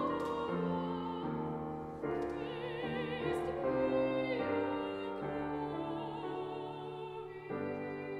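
A woman singing a classical-style solo with vibrato, in held notes that change pitch every second or so, over a sustained instrumental accompaniment.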